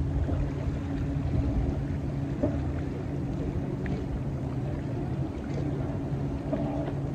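Steady low hum of a motor, with small waves lapping at the shoreline.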